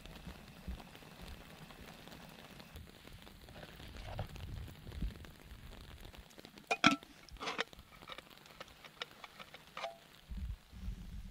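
Rice boiling in a camping pot on a gas canister stove, a soft steady bubbling hiss. Then a few sharp metallic clinks of cookware being handled, the loudest about seven seconds in, with low thumps near the end.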